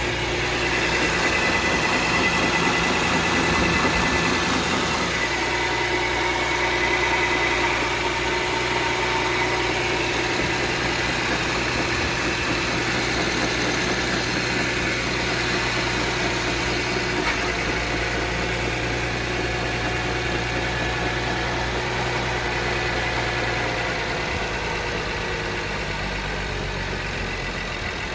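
Volkswagen Touareg 3.6 FSI VR6 engine idling cold, with the knock it makes when cold. The idle note holds steady throughout, shifting slightly a few times.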